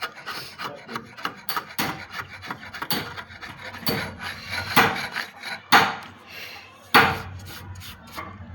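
A hand tool scraping along wood in repeated short strokes, several a second, with louder strokes about a second apart.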